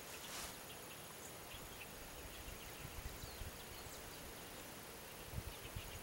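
Faint outdoor background: a steady hiss with scattered faint, short high chirps, and a few low thumps about three and five and a half seconds in. No clear loud song from the perched donacobius is heard.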